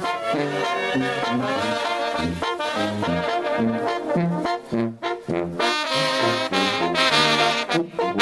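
Mexican brass band playing a lively tune, trombones and trumpets carrying the melody over a line of low bass notes, with a short break in the sound about five seconds in.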